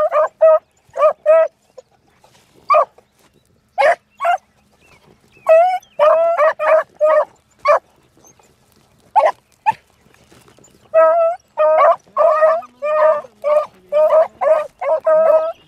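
Beagles giving tongue on a scent trail: short, quick, clear barks in bunches with brief lulls, then a fast, unbroken run of barking over the last few seconds as the hounds press the line.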